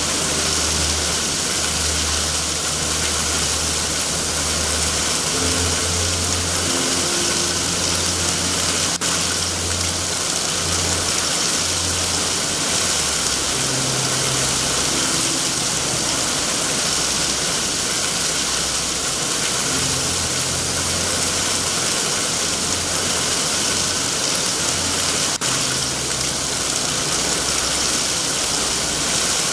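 Steady heavy rain hiss with a low, uneven rumble underneath and two faint ticks.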